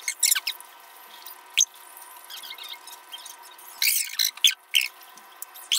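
Close-miked eating sounds: wet chewing, lip smacks and squeaky clicks from a mouth, coming irregularly and busiest near the end.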